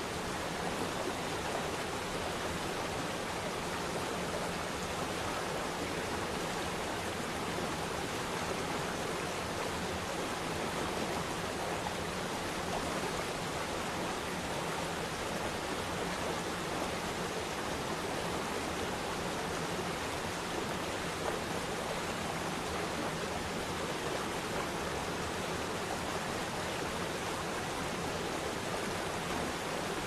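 Even, unchanging rush of running water, like a waterfall.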